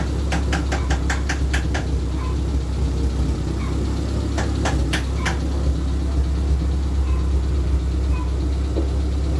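Suzuki Futura pickup's engine idling with a steady low rumble. A quick run of sharp ticks, about four a second, sounds over the first two seconds, and a few more come about halfway.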